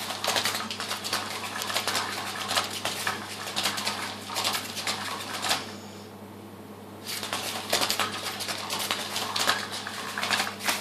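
Battery-powered Cat's Meow cat toy's motor and plastic gears running with a fast clicking rattle as the wand spins under the cover. It stops about six seconds in and starts again a second and a half later, the toy's stop-start play mode.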